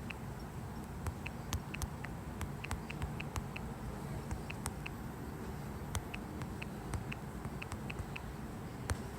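Phone touchscreen keyboard clicks as a Wi-Fi password is typed: a run of short, sharp key-tap clicks, a few per second at an uneven typing rhythm.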